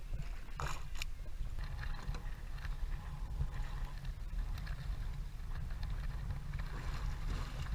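Steady low rumble of wind on the microphone and water moving against a fishing boat's hull, with a couple of faint knocks about a second in.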